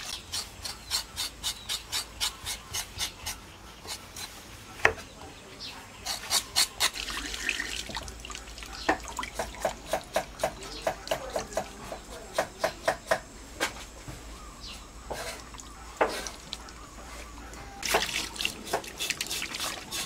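A knife chopping luffa gourd on a board in quick, regular strokes, then water splashing and hands rubbing as meat is washed in a metal bowl of water.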